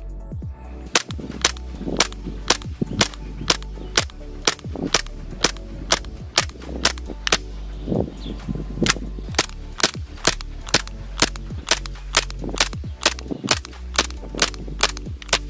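Tokyo Marui Glock 22 gas blowback airsoft pistol firing shot after shot, about two a second, each a sharp crack as the slide cycles.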